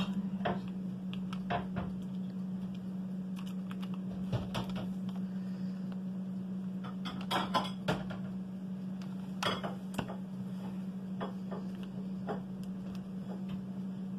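Craft materials handled on a tabletop: scattered light clicks and clinks of small hard objects, bunched together near the middle, over a steady low hum.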